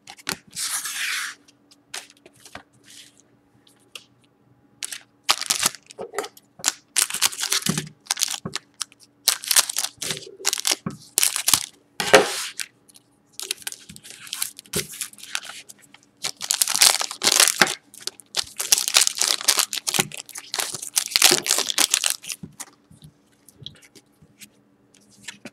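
Panini Prizm foil trading-card pack wrappers crinkling and being torn open, with the cards inside handled in between: a brief rustle, a short lull, then a long run of irregular crinkles and rips.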